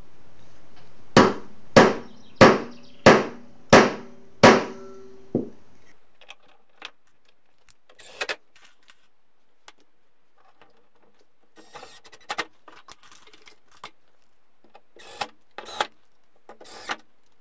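Six sharp metal-on-metal strikes about two thirds of a second apart, each with a brief ring, as a steel punch is struck against the hinge to tighten the pin in its knuckle. Later come a few short, quieter bursts from a Makita cordless driver running the hinge screws into the door.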